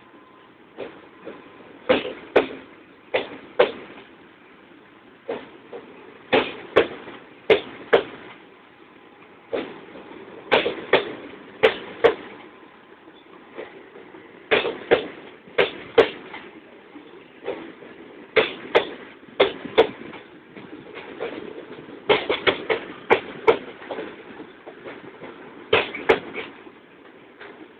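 Railway car wheels clacking over rail joints in repeated groups of about four sharp clacks, roughly every four seconds, over a steady rumble of the moving train.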